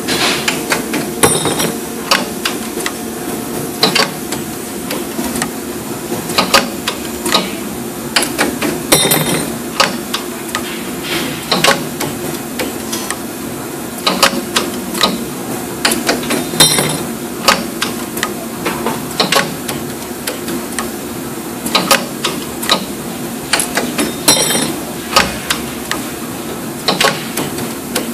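AIM 3D CNC wire bender running through a bending cycle on metal rod: a steady machine hum under frequent sharp metallic clacks and clicks as the bending head turns and the rod is fed and bent.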